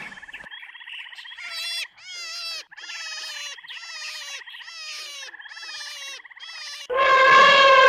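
Animal calls: a fast, steady pulsing trill under a run of repeated croaking calls that each drop in pitch at the end, then a much louder call about seven seconds in that falls in pitch.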